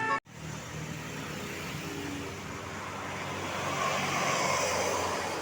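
Road traffic: a vehicle's engine and tyre noise swelling about four seconds in as it passes, with a multi-tone horn tune cut off abruptly at the very start.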